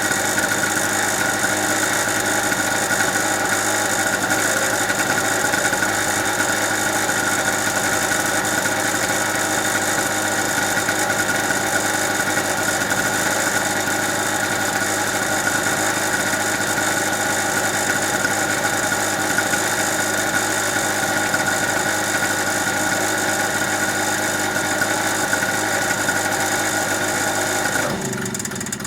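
Small two-stroke GMC portable generator (a Chinese clone of a Yamaha) running steadily with the choke half on, on eight- or nine-year-old petrol. The sound drops away sharply near the end.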